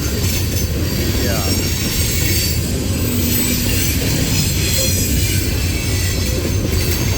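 Loaded coal hopper cars of a CSX freight rolling past on a curve: a steady rumble of wheels on rail with high, thin wheel squeal.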